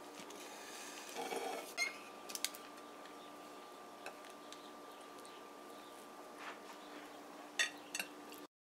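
Kitchen knife cutting through a flan cake and scraping on a foil pan, then a slice lifted onto a ceramic plate: faint scrapes and light clicks, with two sharper clicks near the end, over a faint steady hum.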